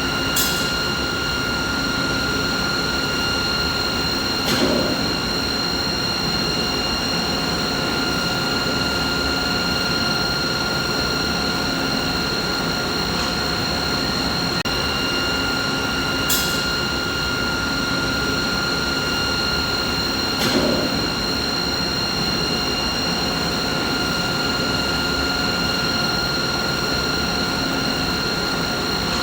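Steady machine noise: an even rumble with a constant whine of several high tones over it. A few brief clicks come in pairs, the pattern repeating about every 16 seconds.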